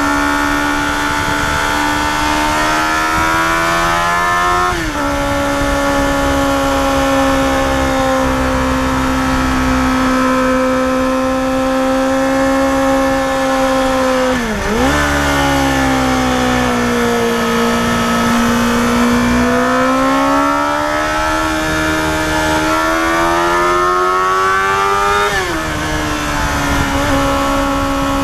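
Yamaha FZR250R's 250 cc inline-four engine running at high revs while climbing, with wind noise. The pitch rises slowly, then drops sharply at a gear change about five seconds in and again near the end. Around halfway it dips sharply and recovers, then sags and slowly climbs again.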